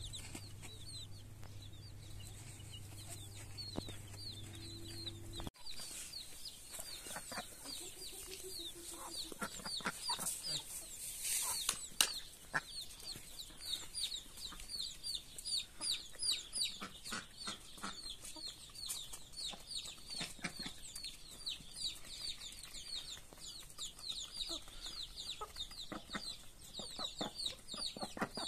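A flock of baby chicks peeping: many quick, high chirps that fall in pitch, overlapping without pause, with occasional lower clucks from adult chickens and short taps. A steady low hum underneath stops suddenly about five seconds in.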